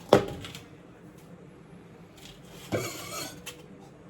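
A sharp knock right at the start, a short rustling scrape about three seconds in, and another knock at the very end: things being handled and set down.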